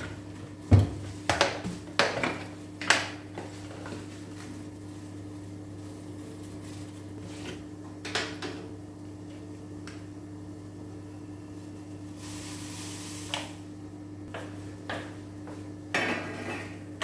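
Kitchenware clattering: clinks and knocks of a glass jar and steel utensils handled at a gas stove, several sharp ones in the first three seconds, then only a few now and then. Near the end comes the clink of a steel plate set as a lid on a steel pot of boiling tea water. A steady low hum runs underneath.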